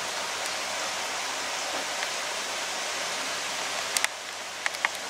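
Steady airy hiss of electric stable fans blowing, dipping slightly about four seconds in, with a few light clicks near the end.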